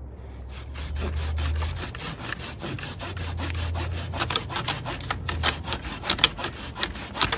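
REXBETI folding hand saw with an 8-inch SK5 steel blade, sawing back and forth through a lilac branch about 2.5 inches thick in quick, even strokes; the blade cuts in both directions. The strokes grow sharper and louder about halfway through.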